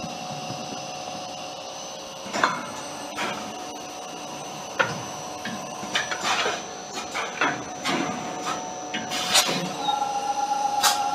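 Extrusion blow molding machine for plastic toy balls running, with a steady machine hum and irregular sharp clacks and knocks as its pneumatic mold clamps work. A higher steady tone joins near the end.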